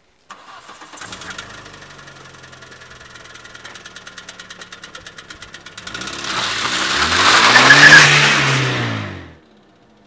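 Car engine starting, then running with a fast regular ticking. About six seconds in it revs up loudly, its pitch rising then falling, and dies away just before the end.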